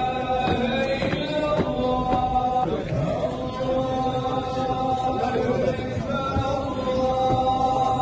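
Many voices chanting together in long, held notes with occasional wavering.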